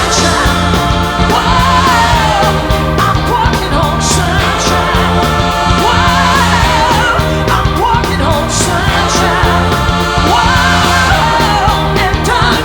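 Pop-rock song with a singer over a steady beat and bass.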